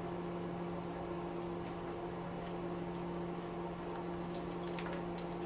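Steady low electrical hum, with a few faint sharp clicks of small metal parts being handled near the end.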